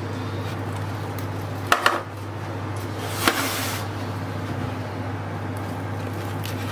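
A steady low hum runs under everything. A metal serving tray is handled, with two sharp clinks near the two-second mark and a brief clatter a little after three seconds.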